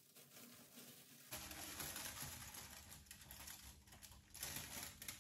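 Faint crinkling and rustling from hands handling the hair-bleaching materials, a little louder from about a second in.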